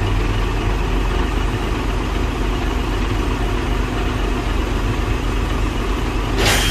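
Vehicle engine running steadily at a low, even hum, with a short hiss near the end.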